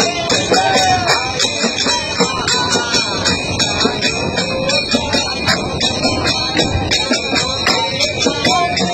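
Men singing a garba song together over a steady rhythmic beat struck on a hand-held frame drum, with a bright jingling running through it.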